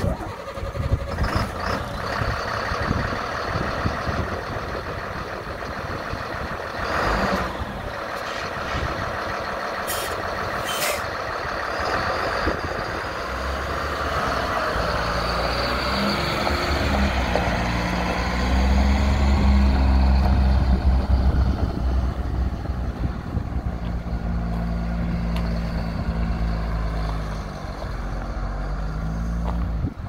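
School bus diesel engine running, with a couple of short high hisses about ten seconds in; from about halfway the engine sound turns deeper and louder, peaking a little past the middle.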